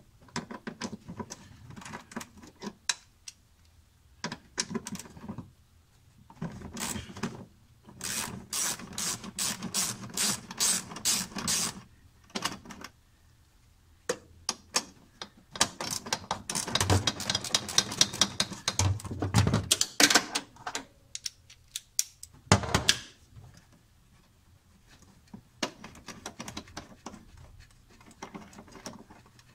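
Hand socket ratchet clicking in quick runs of a few seconds each as bolts holding a small support bracket are backed out, with a few knocks of tool on metal between runs.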